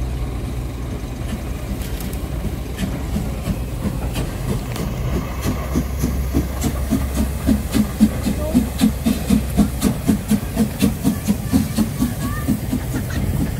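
Narrow-gauge steam locomotive 99 331 passing close at low speed with its train. Its exhaust beats at about three to four a second, growing strong from about five seconds in, over a low rumble, with scattered sharp clicks.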